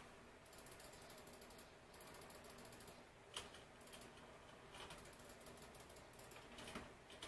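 Near silence, with faint, fast, fine ticking in stretches and a few soft clicks.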